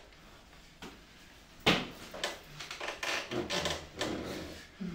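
Performers moving on stage: one sharp knock about a second and a half in, then a run of softer knocks and rubbing.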